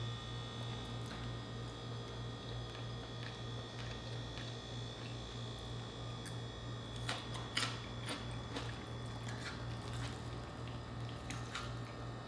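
Close-up eating sounds: soft chewing with a few sharp clicks and crunches, the clearest cluster about seven seconds in, over a steady low hum.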